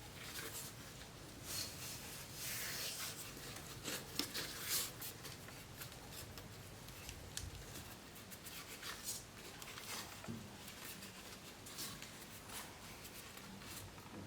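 Faint scratching, rubbing and small clicks of objects being handled, busiest a couple of seconds in.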